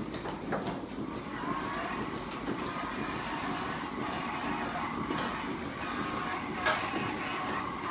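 Milking parlour machinery running with a steady mechanical hum and hiss. A few light clicks come around the middle, and one sharp knock near the end.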